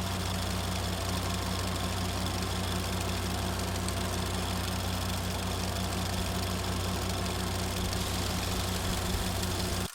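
Super 8 film projector running: a steady motor hum with a fast, even clatter from the film advancing, over a constant hiss.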